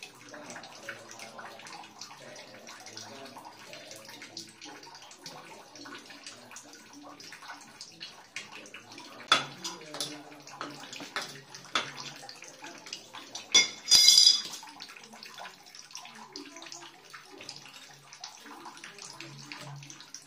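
Metal fittings of a chrome shower mixer clicking and scraping as it is fitted onto the wall pipes and its nuts are tightened with a wrench. Several sharp metal clinks come between about nine and fourteen seconds in; the loudest is a ringing clank near fourteen seconds.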